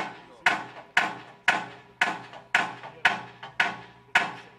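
Hammer striking metal in steady blows, about two a second, each leaving a short ringing tone.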